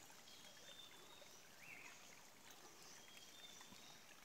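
Near silence: faint, steady forest background hiss with a few faint, brief high-pitched calls.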